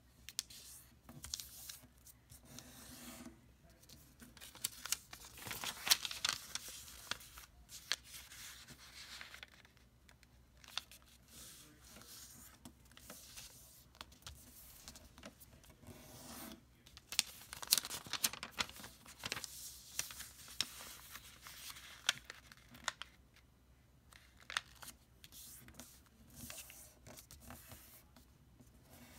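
A sheet of origami paper being folded and creased by hand: rustling and crinkling in several bursts, with sharp crisp snaps as the creases are pressed down.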